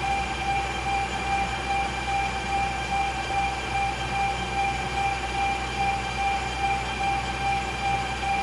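Puma C410x1000 geared-head metal lathe running under power, its headstock gears giving a steady whine over a low hum, with a gentle regular pulse a few times a second.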